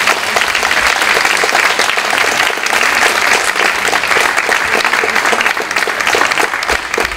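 Audience applauding: dense, steady clapping from many hands, easing off slightly near the end.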